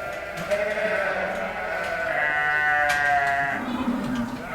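Sheep bleating, several calls at different pitches overlapping, with one long bleat about halfway through.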